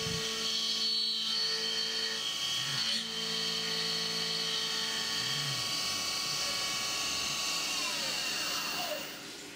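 CNC milling machine spindle driving an end mill through a finish pass under flood coolant: a steady high whine of several tones over the hiss of cutting and coolant spray. Near the end the whine slides down in pitch and the sound drops off.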